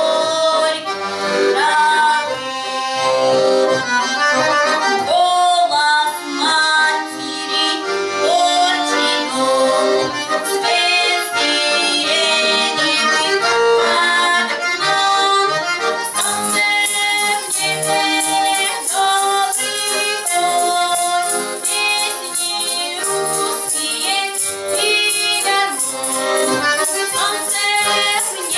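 A young woman singing a Russian folk song to accordion accompaniment. About halfway through, a tambourine's jingles join in a steady rhythm.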